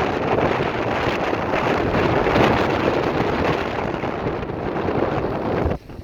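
Strong wind buffeting the microphone: a dense, steady rushing rumble that drops away suddenly near the end.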